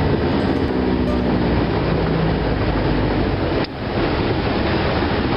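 70 hp Evinrude outboard motor running at cruising speed, blended with a steady rush of wind and water against the hull. The noise dips briefly about three and a half seconds in.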